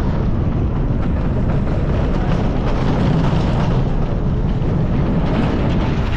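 Wind rushing over the camera and wheels rumbling on steel track as a Cobra's Curse spinning roller coaster car runs through its course, a steady loud noise heaviest in the low range.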